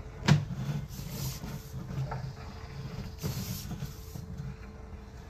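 Sewer inspection camera's push cable being pulled back through a drain line: uneven rubbing and creaking, with a sharp knock about a third of a second in and scraping bursts about a second in and again after three seconds.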